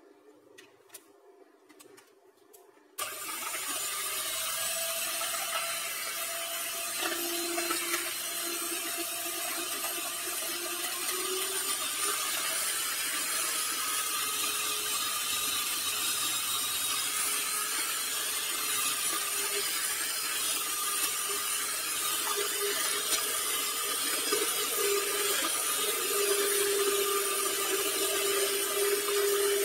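Miyako electric hand mixer switched on about three seconds in and running steadily at high speed, its wire beaters whisking eggs, sugar and emulsifier in a plastic bowl to beat them up until they foam. A few faint clicks come before it starts.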